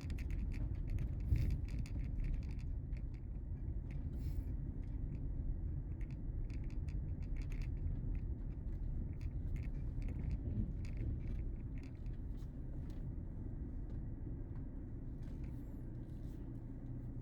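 A van's engine running with a low, steady rumble, with scattered light clicks and rattles over it.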